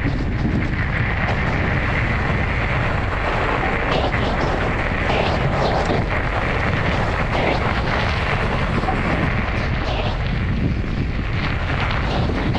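Wind buffeting the microphone: a steady, rough rumbling noise with no let-up.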